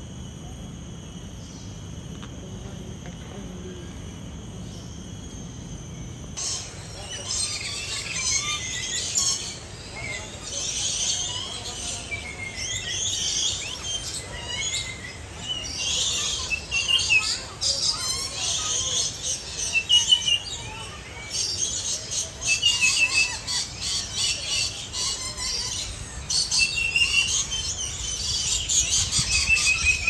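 A steady background hum, then from about six seconds in many shrill bird chirps and squawks, short calls coming several times a second and overlapping.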